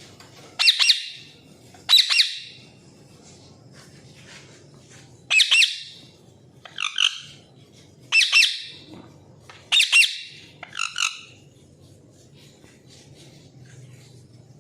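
Pet parrots squawking: about seven loud, harsh, high-pitched calls, some coming in quick pairs, at irregular gaps, then stopping.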